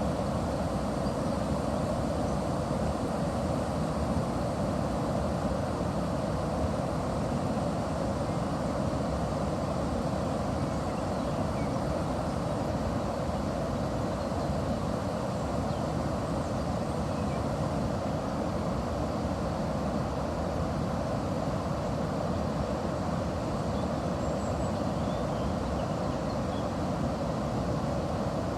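Water of the Chiascio river rushing steadily past a watermill, a deep, even rush with no breaks.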